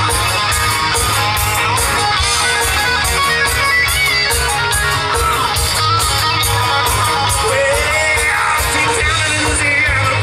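Live rock and roll band playing an instrumental passage: electric guitar lead with bent notes over a steady drum beat and bass.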